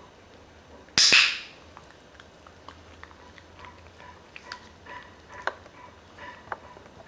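A small poodle-type dog gives one short, sharp, noisy huff about a second in, then only faint small ticks and clicks follow.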